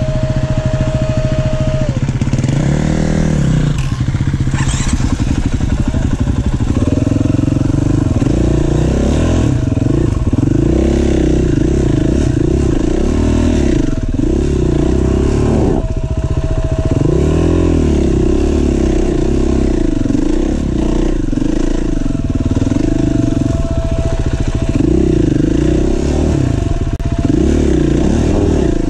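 KTM EXC-F four-stroke enduro motorcycle engine revving up and down under load as the bike climbs a dirt trail, the throttle opened and eased every second or so.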